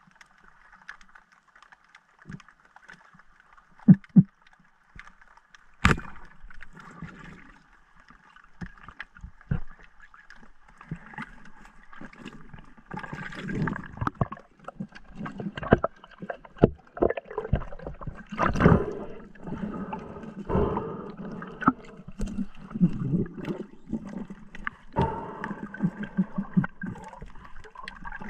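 Underwater action-camera sound: a couple of knocks, then a single sharp crack about six seconds in as the speargun fires. Then a dense run of clicks, knocks and bubbling as the speared mullet is pulled in on its line and handled.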